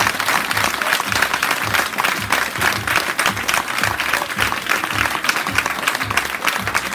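A room of people applauding, with many hands clapping together. Underneath, music plays with a steady low beat of about three thuds a second.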